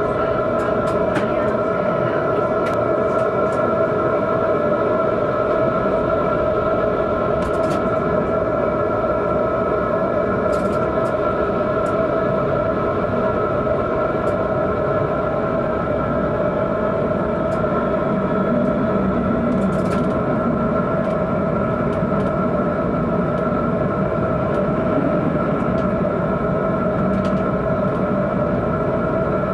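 Tram running along street track, heard from the driver's cab: a steady rumble with a constant electrical hum of several tones, and a few short clicks and hisses.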